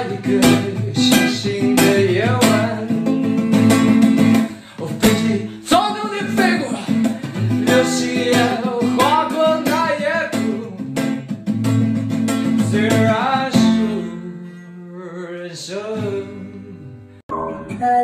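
A man singing in Chinese to his own strummed acoustic guitar. Near the end the playing thins out and quietens, then breaks off abruptly.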